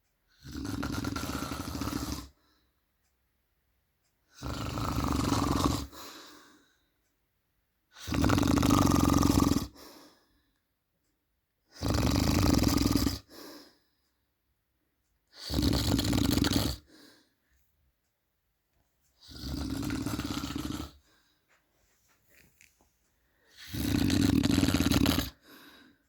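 A man snoring loudly in his sleep: seven long snores, one about every four seconds, each lasting one and a half to two seconds, with near silence between them.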